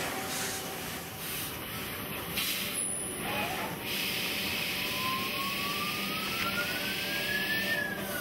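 Mazak Integrex i-100 Bartac-S mill-turn CNC machine running during end-face turning: steady machining noise with a whine that climbs in pitch over a few seconds and turns down near the end.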